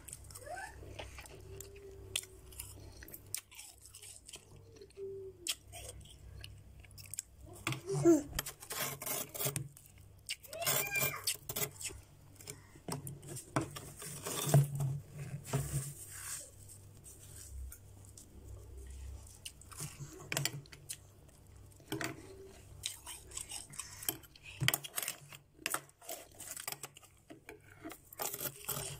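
Metal spatula scraping and stirring loose freezer frost in a plastic bowl: irregular crisp crunches and scrapes, with louder clusters at several points.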